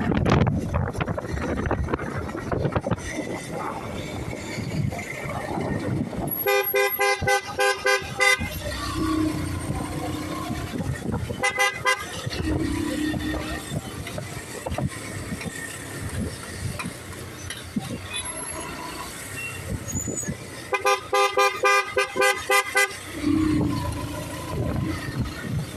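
Road and wind noise while riding in traffic, with a vehicle horn beeping rapidly in two runs of about two seconds each, one about a quarter of the way in and one near the end, and a shorter toot in between.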